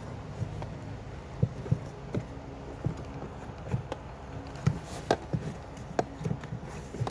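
Irregular light knocks and clicks of hands working on parts, about one or two a second, over a faint steady low hum.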